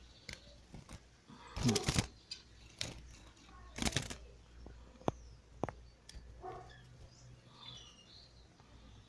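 A small pet finch chirping faintly in short calls, among sharp clicks and taps, with louder rustling bursts about two seconds in and again near four seconds.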